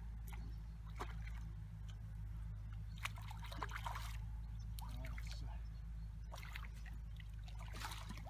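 Light, intermittent splashing and sloshing of water as a small hooked carp is played and brought in at the bank, over a steady low rumble.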